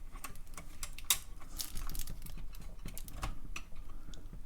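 Light, irregular clicks and taps of a plastic keycap held in a wire keycap puller, and of keys on the keyboard, being handled.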